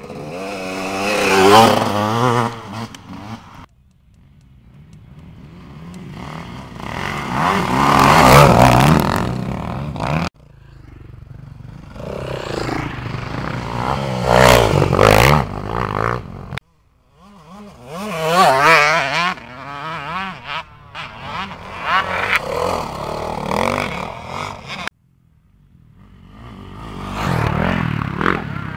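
Dirt bike engines revving hard as riders pass one after another, each pass rising to a peak and fading away. The sound cuts off abruptly several times between passes.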